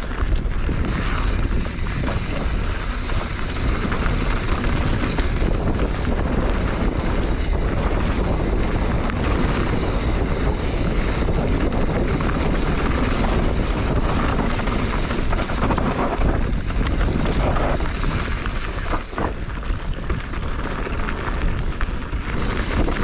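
Wind rushing over the microphone of a mountain bike on a fast downhill, over the steady crunch and rattle of tyres and bike on loose dirt and shale rock.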